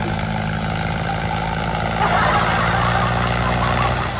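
Small electric gear motor of a homemade toy tractor running under load, a steady hum with a rougher, louder grinding layer coming in about two seconds in.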